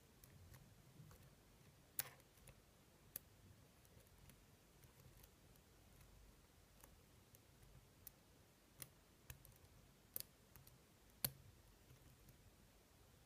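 Faint, scattered sharp clicks of a lock pick and tension wrench working the pins of a 6-pin Schlosser Technik pin-tumbler lock during single-pin picking, about eight clicks at uneven intervals, the loudest about two seconds in and near the end.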